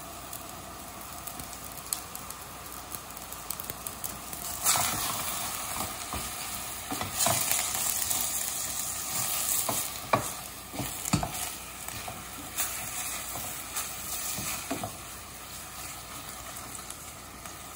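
Raw ground meat sizzling in a stainless steel saucepan of onions as a wooden spatula stirs and breaks it up. The sizzle grows louder about five seconds in, and the spatula knocks sharply against the pan a few times.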